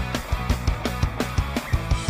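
Background music with a steady, fast drum beat over sustained pitched instruments.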